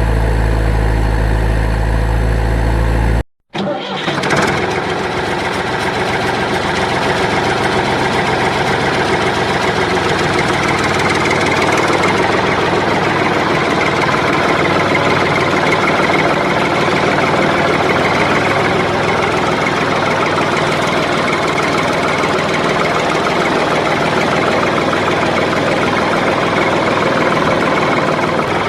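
Steady engine-like running sound of a toy vehicle. It cuts out completely for a moment about three seconds in, then starts again and runs on steadily.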